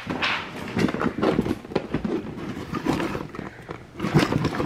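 Handling noise from a handheld camera carried while walking: irregular rustles, knocks and scuffs against clothing and skin, with footsteps underneath.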